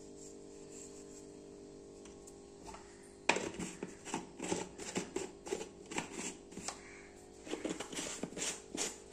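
Plastic jar of black salt being handled and shaken over steel plates: a sharp knock a little over three seconds in, then irregular rattling and tapping as the salt is sprinkled. A steady low hum runs underneath at first.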